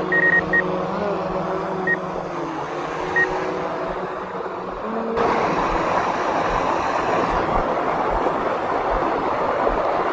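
Small quadcopter drone's motors and propellers humming steadily, with a few short high beeps in the first two seconds. About five seconds in, the hum steps up in pitch and a loud even rush of propeller wash sets in.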